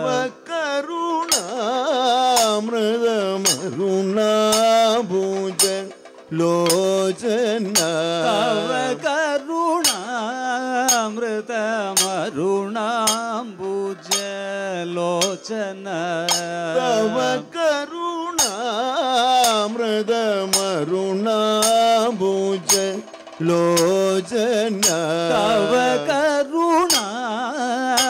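Kathakali padam singing: a male voice holds a wavering, ornamented melody in a chant-like style. Sharp metallic time-keeping strikes sound through it in a steady pulse, typical of the singers' chengila gong and ilathalam cymbals.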